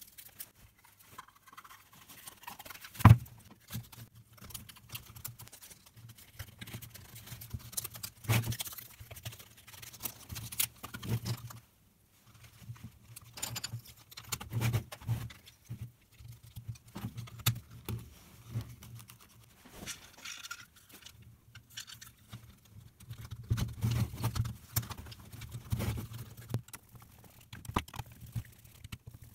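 Hands handling and fitting the cell stack of an 18 V NiMH cordless-tool battery pack into its plastic housing: scattered plastic clicks, taps and rubbing, with one sharp knock about three seconds in. Near the end a screwdriver turns the housing screws.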